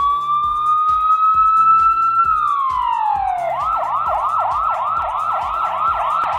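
Police car siren: a wail that rises and holds, falls away about two to three seconds in, then switches to a fast yelp of about three to four rises a second.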